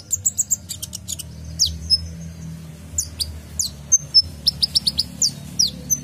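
Male Van Hasselt's sunbird (kolibri ninja) singing a fast string of sharp, high chirps and short downward-slurred notes, with a brief pause a couple of seconds in.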